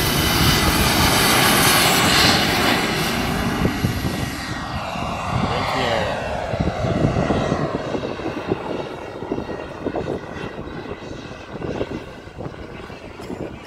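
Radio-controlled model jet's engine running at full power on its takeoff run, dropping in pitch as the jet passes and then fading as it climbs away.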